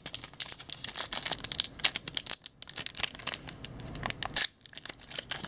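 Foil wrapper of an Upper Deck SP Authentic hockey card pack crinkling and tearing as fingers pick it open: a dense run of fast crackles with two short pauses.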